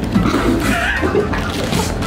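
Young men chuckling and laughing, in short broken stretches.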